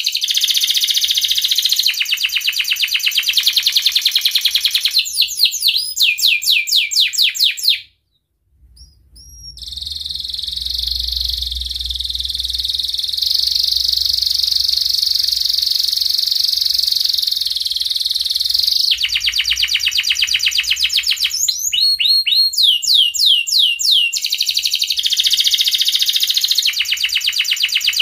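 A male domestic canary in breeding condition singing: fast repeated trills and quick rising-falling notes, broken about eight seconds in by a short pause, then one long unbroken rolling trill lasting about nine seconds before the fast repeated notes return.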